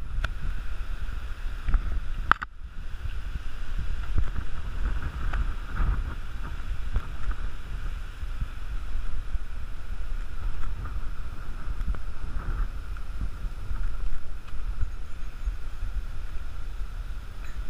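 Wind buffeting a camera microphone, a steady low rumble, with a brief dropout about two and a half seconds in.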